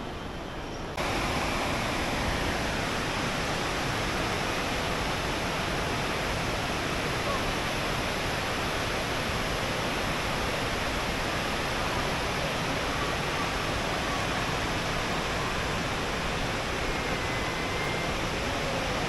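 A steady, even rushing noise that cuts in abruptly about a second in.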